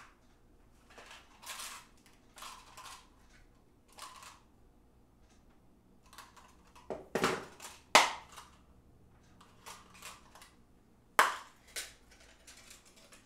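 A small package of chainsaw piston rings being worked open by hand: rustling in short bursts, with a few sharper snaps, the loudest about eight seconds in and again about eleven seconds in.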